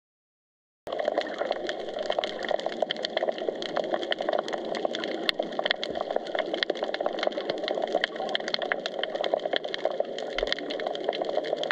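Underwater sound on the seabed: a dense, steady crackle of fine clicks over a muffled water hiss, which starts abruptly about a second in.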